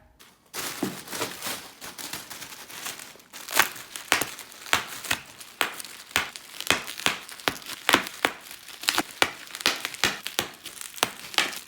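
Bubble wrap packaging being pulled off and crumpled by hand: a long run of sharp crinkles and crackles, with some tearing.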